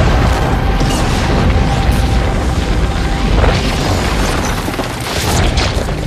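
Film sound effects of a massive alien machine being destroyed: deep, continuous booming and rumbling with crashing debris, under the film's score music. Two short whooshing swells come about three and a half and five seconds in.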